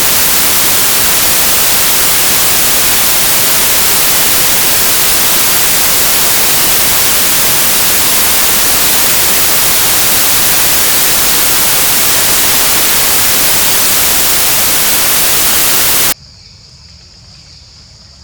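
Loud, steady static hiss like white noise, which cuts off suddenly about sixteen seconds in. A faint background with a steady high-pitched tone is left.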